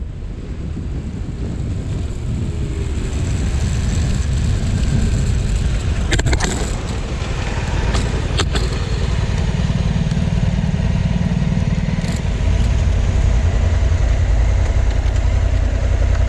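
Motorcycle engine running with a steady low rumble, growing louder about twelve seconds in, with a few brief clicks.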